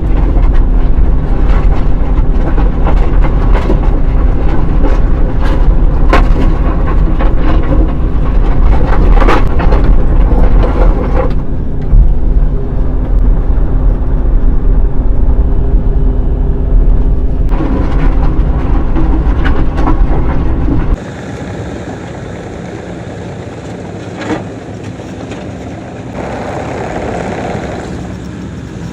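Kobelco SK85 excavator's diesel engine running hard while back-dragging dirt to grade, with scattered clanks and scrapes from the bucket. About two-thirds of the way through, the sound drops suddenly to a quieter, steady engine hum.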